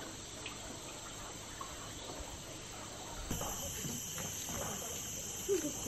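Steady high-pitched drone of insects, which grows louder about three seconds in.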